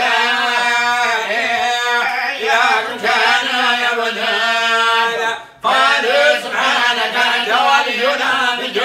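A man's voice chanting a religious recitation in long, held, wavering notes, with a brief breath pause just past halfway.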